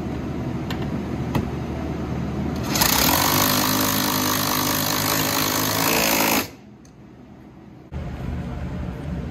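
Cordless hammer drill driving a 13 mm socket on a long extension, running down mechanical lock nuts on the bolts of a dash mount. It runs hard for about three and a half seconds, starting a little under three seconds in, then stops suddenly, over a low steady background hum.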